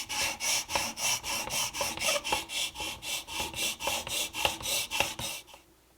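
Smoothing plane iron held in a honing guide, pushed back and forth on a diamond sharpening stone: an even run of quick rasping strokes, about four a second, honing the edge. The strokes stop near the end.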